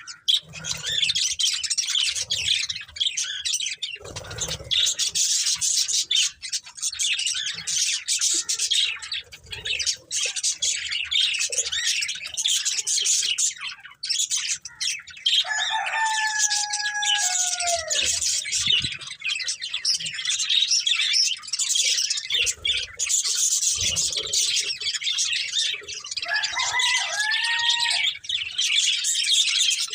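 A flock of budgerigars chirping and chattering continuously in a high, busy twitter. Twice a lower, drawn-out call that drops in pitch at its end cuts through, first at about the middle and again near the end.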